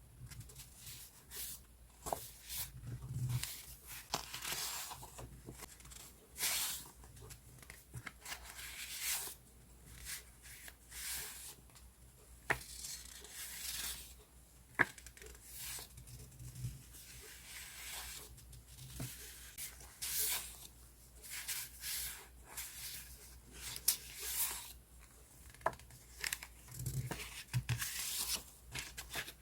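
Paper journaling supplies being handled: sheets of paper rustling, sliding and being pulled apart in a run of irregular swishes and crinkles, with a few sharp clicks.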